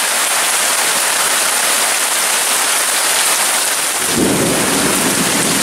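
Heavy rain pouring steadily, with a low rumble of thunder starting about four seconds in.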